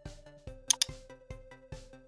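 Electronic background music with a steady beat. Two sharp clicks, close together, cut through it about three-quarters of a second in.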